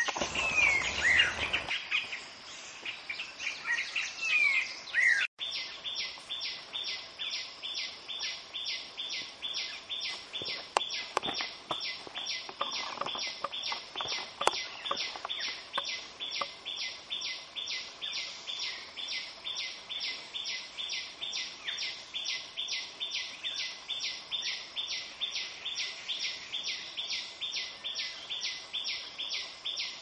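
Forest birds calling, with squawk-like calls and falling whistled sweeps in the first few seconds. After a brief break about five seconds in, a long, even train of short high pulses repeats about three times a second.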